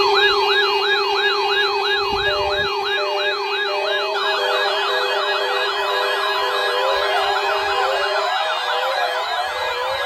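Electronic siren alert tones: a siren pitch rising and falling rapidly, a little over twice a second, over a steady low tone. A second, faster sweeping siren joins about four seconds in, and the steady low tone stops about eight seconds in.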